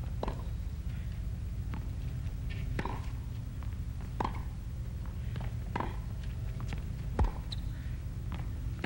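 Tennis ball struck back and forth by rackets in a rally on a hard court, a sharp hit about every one and a half seconds, the loudest a little after seven seconds in, over a steady low hum.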